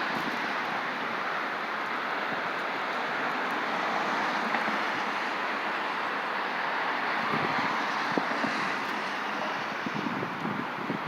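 Wind blowing steadily, with gusts buffeting the microphone in the second half.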